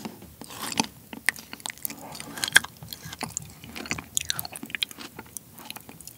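Close-miked mouth sounds of chewing a spoonful of frozen seedless persimmon: irregular wet clicks and smacks, the icy flesh sticky rather than crunchy.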